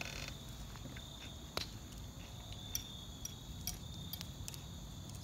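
Insects chirping steadily in the background, a continuous high trill, with a few soft clicks of a fork against a plate.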